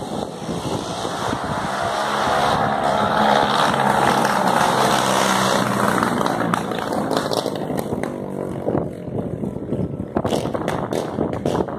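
A motor vehicle passing close by, its engine noise swelling to a peak about four seconds in and then fading away.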